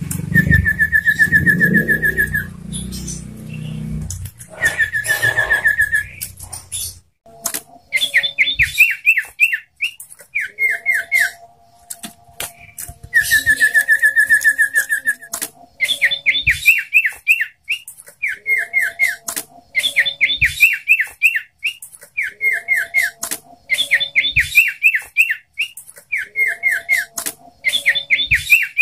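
Common iora (sirtu) singing: repeated bursts of rapid down-slurred whistled notes, broken three times by a steady buzzy trill held for about two seconds. A low rumble sits under the first few seconds.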